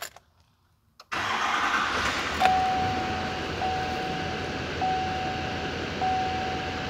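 A click about a second in, then the 6.6-litre LML Duramax diesel V8 of a 2016 Chevrolet Silverado 3500 starts and settles into a steady idle. From about two and a half seconds, a single-tone dashboard warning chime repeats roughly once a second over the engine.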